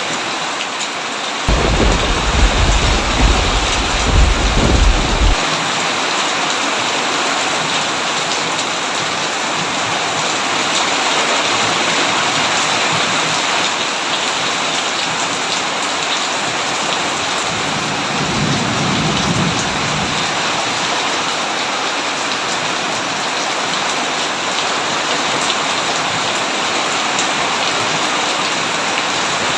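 Heavy rain falling steadily, with a loud rumble of thunder about two seconds in that lasts a few seconds, and a fainter thunder rumble just past the middle.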